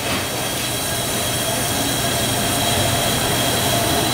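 Rice-cake steamer giving off a steady rushing hiss of steam with a few steady whining tones, growing slightly louder.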